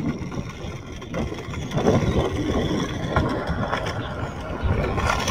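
Skateboard wheels rolling over rough asphalt as a dog pushes off and rides it: a rumbling roll with scattered knocks from the board, getting louder about two seconds in.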